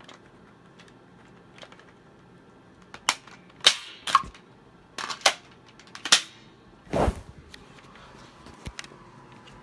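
Handling noise: a string of sharp clicks and knocks starting about three seconds in, as a camera phone and a plastic toy gun are picked up and moved. The strongest is a dull thump about seven seconds in.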